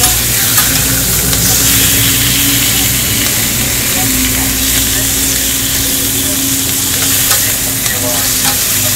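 Bacon, hot dog sausages and eggs sizzling on a hot flat-top griddle, a steady hiss, with metal tongs and a spatula clicking and scraping on the plate as the bacon is turned. A steady low hum runs underneath.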